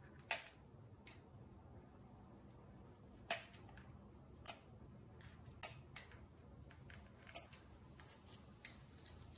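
Thumb-pump oil can clicking as it is squeezed to squirt oil onto an engine's timing chain: about ten short, sharp clicks at uneven intervals, the loudest about four and a half seconds in.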